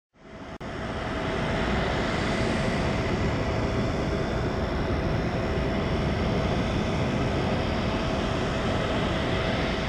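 Steady jet-turbine noise on an airport apron beside a parked Boeing 777 freighter: a constant rumble with a steady whine over it, not rising in pitch. It fades in just after the start.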